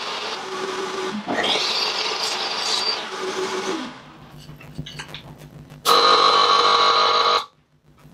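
A power tool runs, shifting in pitch about a second in, and shuts off about four seconds in. After some light clicks and handling, a second short burst of a power tool runs for about a second and a half and stops abruptly.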